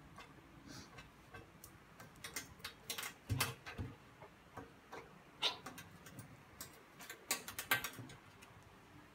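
Irregular light clicks and taps of a dog's claws and paws against a glass chair and tiled floor, with a dull thump about three and a half seconds in.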